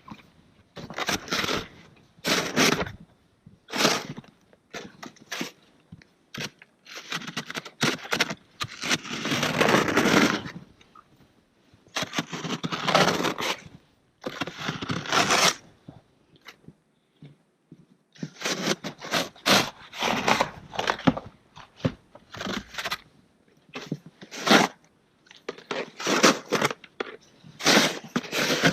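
Small hand shovel scraping and scooping packed snow in repeated strokes, one every second or two, with short pauses between.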